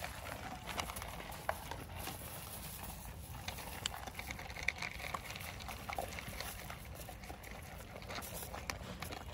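A dog and puppies crunching dry kibble from plastic bowls: irregular small clicks and crackles of chewing, over a steady low rumble.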